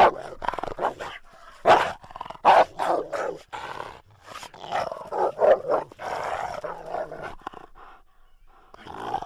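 Cartoon sound effect of a dog-like animal growling and barking in a series of short, irregular calls, with a brief lull shortly before the end.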